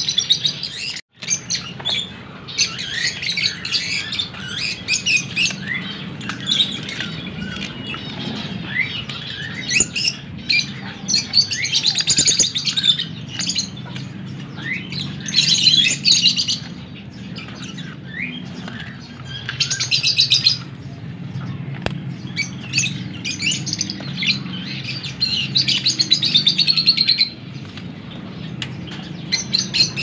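A flock of aviary parrots chirping and chattering without pause, with louder bursts of shrill calls about twelve, sixteen, twenty and twenty-six seconds in.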